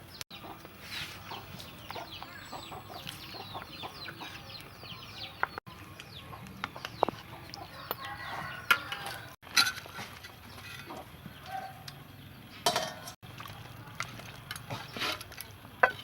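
Chickens clucking throughout, in many short quick calls, with several sharp knocks or clinks in the second half.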